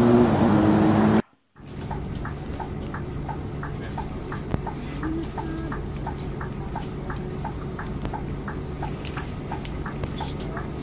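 Street traffic noise, cut off abruptly about a second in. Then a vehicle's turn-signal indicator clicking steadily, about two clicks a second, over the low hum of an idling bus engine.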